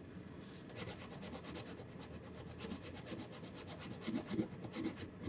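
Household scouring pad scrubbing a metal clock part, taken to be brass, in quick back-and-forth strokes to strip paint softened by paint remover.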